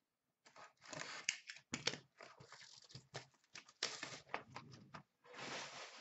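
Packaging on a sealed box of hockey cards being handled and torn open: irregular crinkling and ripping, with one longer tear near the end.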